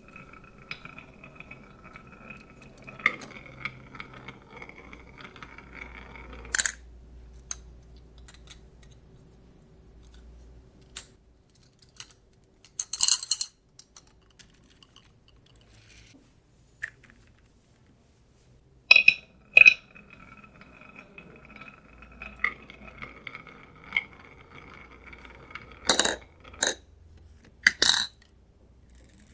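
Marbles rolling down a wooden HABA marble run: a steady rolling hum, broken by sharp clacks and clinks as they drop and strike the track pieces. The rolling stops suddenly about six and a half seconds in, then starts again about nineteen seconds in after a few scattered clicks.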